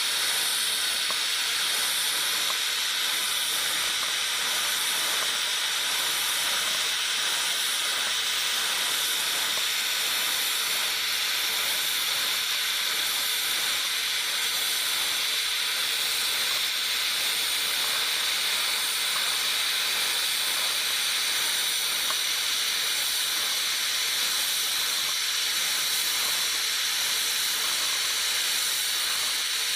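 Steady hiss of a TIG welding arc from an automatic welder running on galvanized steel pipe, with a faint steady hum underneath.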